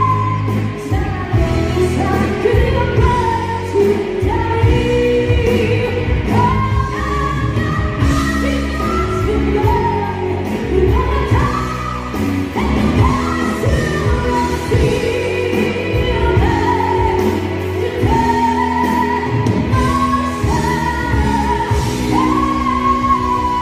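Live rock band, with electric guitars, bass and drums, playing a pop ballad while a woman sings lead into a microphone, holding long notes near the end.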